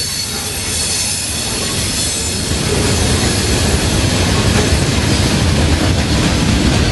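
Freight train rolling past close by: a steady rumble of boxcars and covered hopper cars on the rails, with a thin high squeal of wheels over it. The rumble gets louder about two and a half seconds in.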